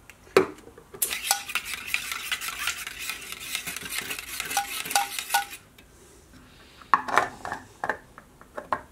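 A sharp knock, then water-soluble coolant being stirred in a plastic reservoir with a metal rod: about four seconds of scraping and clinking with small ringing taps. After a short pause comes a run of clicks and knocks as the reservoir's lid is handled.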